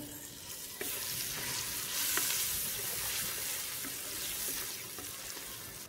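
Chopped tomatoes sizzling in hot oil with fried onions and spices in a clay karahi, stirred with a wooden spatula, with a few faint taps.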